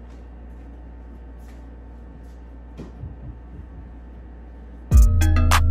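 Quiet room noise with a few faint knocks from handling furniture, then loud music with heavy bass and a sharp beat cuts in suddenly near the end.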